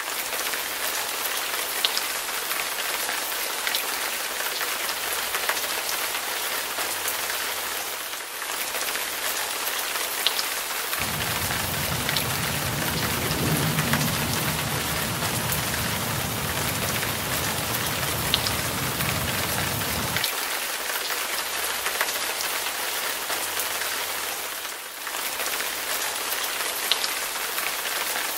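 Steady rain falling, an even hiss with scattered ticks of drops. A low rumble joins it for about nine seconds in the middle.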